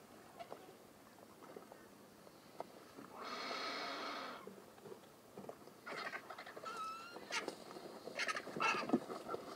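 Vultures calling at a feeding crowd: one harsh, drawn-out call lasting about a second and a half from about three seconds in, then a string of short, sharp calls in the second half.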